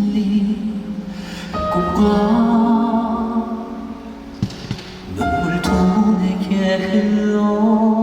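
Male vocal quartet singing a slow song in harmony over instrumental accompaniment, with long held notes and vibrato. The sound drops briefly about halfway, then the voices come back in.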